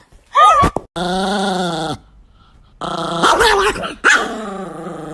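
A dog growling and barking: a short bark near the start, then three drawn-out growls, the last one the longest.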